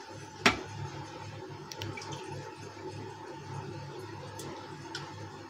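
Quiet steady background hum, with one sharp click about half a second in and a few fainter ticks.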